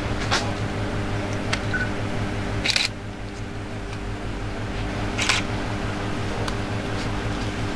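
Steady electrical hum of grow-room lamps and fans, a low mains buzz, with a few short sharp clicks, the loudest about three seconds in and again about five seconds in.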